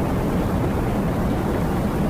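Strong storm wind blowing steadily, a low rushing noise with no letup.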